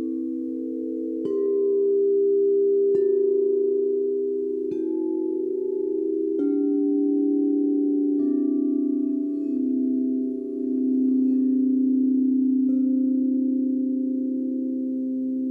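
Singing bowls struck one after another, about every second and a half to two seconds at first and then with a longer pause before one last strike near the end. Each strike sounds a new pitch, and the earlier bowls keep ringing underneath, so the tones overlap into a sustained chord.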